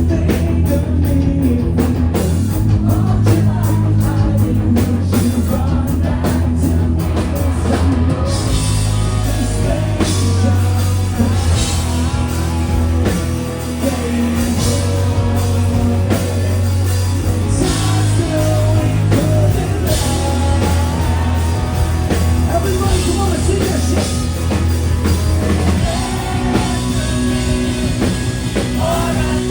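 Rock song played by a band with drum kit and guitars, growing fuller about eight seconds in.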